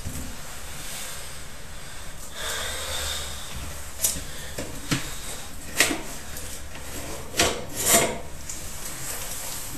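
A pipe inspection camera scraping against the inside of a pipe, over a low steady hum. There is a rasping stretch about two and a half seconds in, then a series of sharp knocks in the second half, the loudest near the end.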